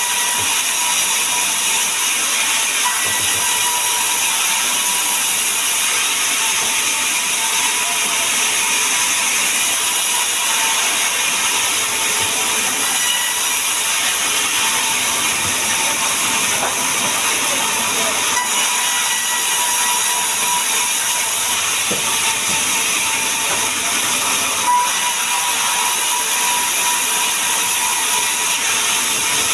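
A woodworking power machine running steadily, giving an even hiss with a faint steady whine.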